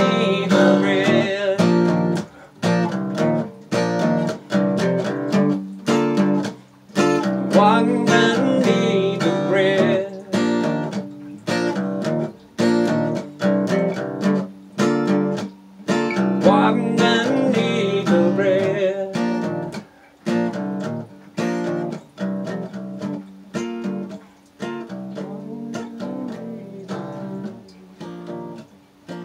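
Acoustic guitar strummed in a steady rhythm, a closing instrumental passage of the song, getting quieter and sparser over the last ten seconds or so.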